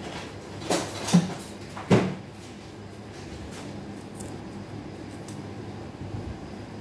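Three sharp knocks in a kitchen in the first two seconds, the last one ringing briefly, followed by a steady low room hum.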